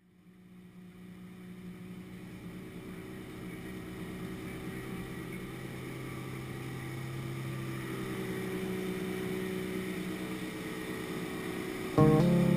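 Speedboat running at speed, its 300 hp outboard motor giving a steady hum under the rush of water and wind. The sound fades up from silence at the start, and music comes in abruptly near the end.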